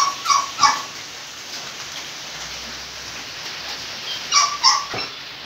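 Short, high-pitched animal calls: three in quick succession at the start, then two more about four and a half seconds in.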